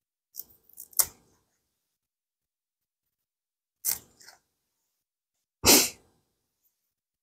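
Broccoli florets being handled and broken apart by gloved hands: short crisp snaps and rustles in three separate clusters, the loudest near six seconds in.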